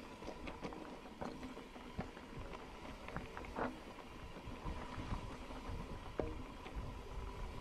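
Mountain bike rolling over a dirt trail: a low rumble of wind and vibration on the microphone, with scattered clicks and knocks of the bike rattling over the ground.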